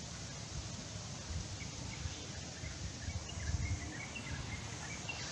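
Outdoor ambience at a pond bank: a steady hiss with an uneven low rumble, and small birds chirping in short high notes from about a second and a half in.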